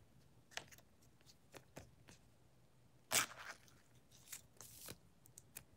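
Faint, scattered crinkles and taps of trading-card packaging and cards being handled, with the loudest crinkle about three seconds in and a short run of rustling near the end.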